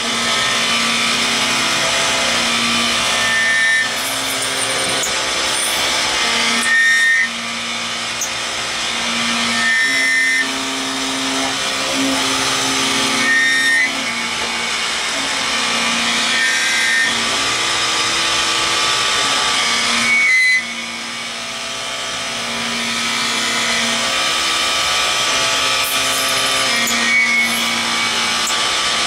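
CNC mill-turn machine cutting a metal part with several tools in the cut at once: a steady machining whine with spindle tones, the sound changing abruptly every few seconds.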